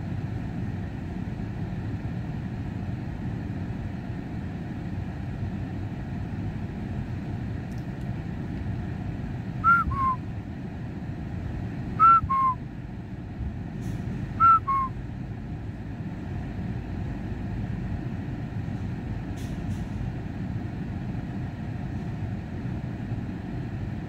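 A person whistling a two-note falling call, high then low, three times about two and a half seconds apart, over a steady low vehicle rumble.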